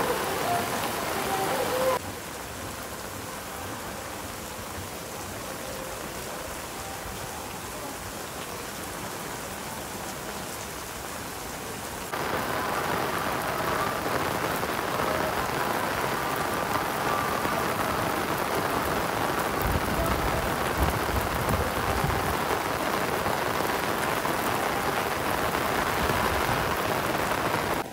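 Heavy rain pouring steadily onto open paved ground. The sound steps down about two seconds in and gets louder again about twelve seconds in, with a brief low rumble a little past the two-thirds mark.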